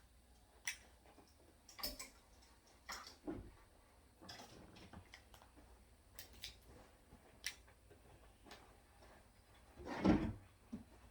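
Scattered light clicks and knocks of small objects being handled and set down, with a louder knock about ten seconds in.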